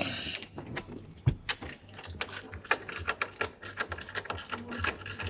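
Ratchet wrench with an 8 mm socket clicking in quick runs as it tightens the sunroof's mounting bolts, done to stop metal parts rubbing and squeaking.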